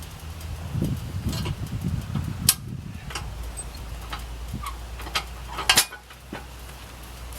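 Scattered clicks and knocks over a low steady hum, with two sharp knocks about two and a half and six seconds in.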